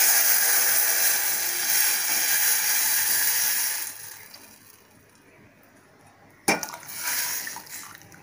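Horse gram broth poured into a steel pot of hot oil tempering, hissing and splashing for about four seconds before dying away. A single sharp knock about six and a half seconds in, followed by a brief scrape.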